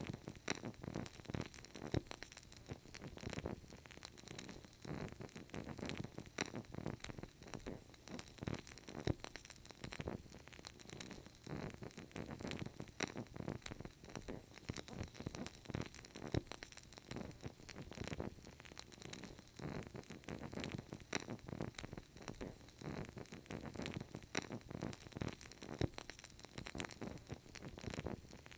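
Burning candle crackling steadily, a dense run of small, irregular pops.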